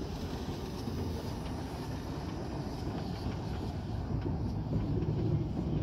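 Small narrow-gauge steam locomotive pulling a short goods train slowly away: a steady low rumble of wheels and motion that grows a little louder, with a few light clicks in the second half.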